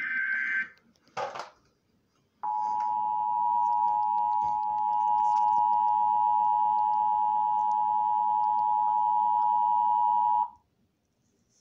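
Emergency Alert System broadcast through a TV speaker: the last of the buzzy SAME header data bursts dies away in the first second, then about two and a half seconds in the EAS attention signal starts, the steady dual tone of 853 and 960 Hz, held for about eight seconds before cutting off abruptly. It signals a severe thunderstorm warning about to be read out.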